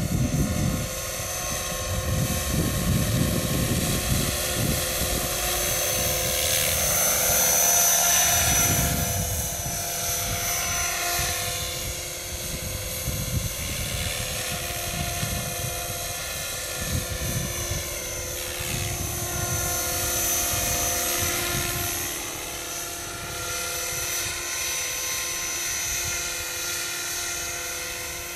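Scale MD500D radio-controlled model helicopter in flight: a steady whine of its motor and rotors, swelling louder twice as it comes close to the microphone.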